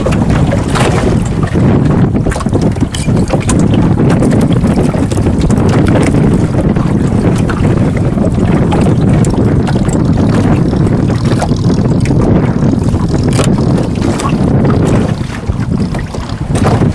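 Wind buffeting the microphone on a small boat in choppy open water: a loud, steady low rumble with scattered small clicks and knocks from handling the line and the catch.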